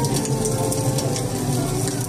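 Artificial fireplace playing a recorded log-fire crackle: scattered sharp pops and snaps, several in two seconds. Under it run steady background music and a low murmur of the room.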